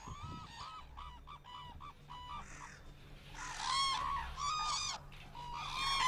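Black-necked cranes calling: a string of short calls from several birds, growing louder and more crowded about halfway through and again near the end.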